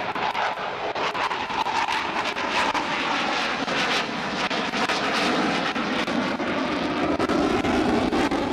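Panavia Tornado's twin Turbo-Union RB199 turbofan jet engines, a loud continuous jet roar as the jet banks past overhead, the sound deepening in pitch toward the end.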